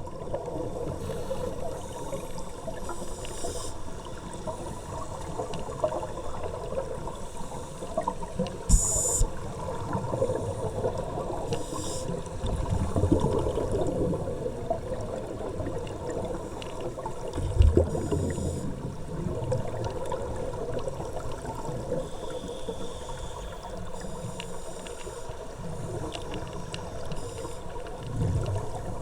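Water gurgling and sloshing over a steady hum, with a few brief knocks.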